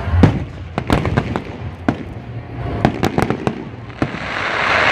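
Fireworks display: aerial shells bursting in an irregular run of sharp bangs and pops, with a rush of noise building near the end.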